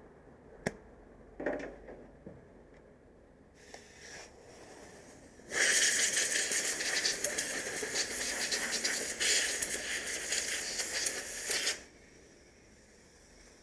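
A sharp click, then a loud rushing hiss with a crackly edge for about six seconds that cuts off suddenly.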